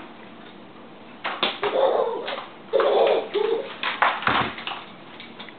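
Babies babbling and cooing in short vocal bursts, mixed with several sharp knocks and one dull thump, as a hanging baby jumper seat is swung and knocked about.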